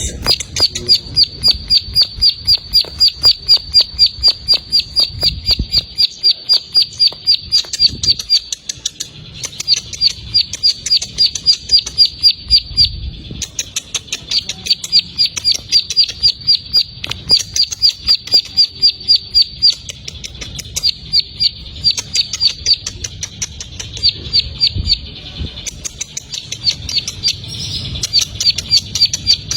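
Ciblek sawah, a prinia, singing a rapid 'ngebren' chatter: runs of sharp, high notes repeated about six times a second for several seconds at a time, with short breaks between runs.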